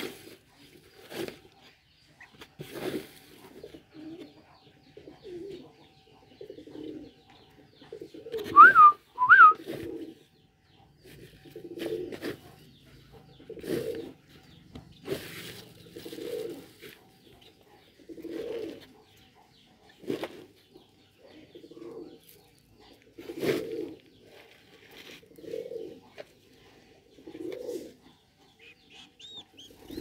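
A dove cooing again and again, short low coos every second or two, with two loud quick rising chirps about nine seconds in and a few light clicks.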